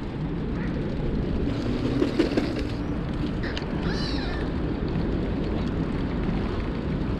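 Steady wind and riding rumble on the camera microphone of a moving bicycle, with a single short rising-and-falling bird call about four seconds in.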